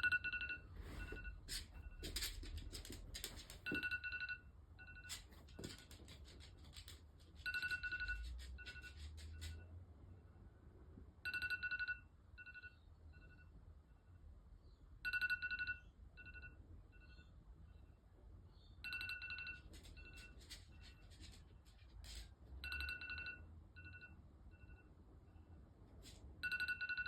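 iPad alert tone ringing over and over: an electronic chime with a longer note, then a run of short pips, repeating about every four seconds. There are scattered clicks and rustles in between, mostly in the first few seconds.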